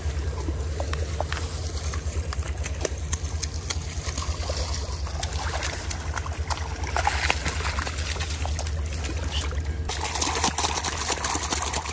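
Shallow creek water running and splashing as a hooked pink salmon is brought in and slipped into a mesh bag at the water's edge. The splashing is loudest over the last two seconds, over a steady low rumble.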